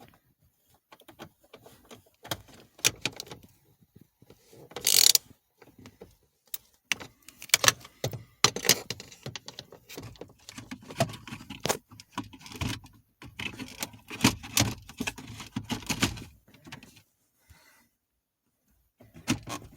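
Irregular clicks, knocks and rattles of plastic and metal as a double-DIN car stereo is pushed into the dashboard opening and lined up on its mounting brackets, with a short scraping rasp about five seconds in and a busy run of knocking in the middle.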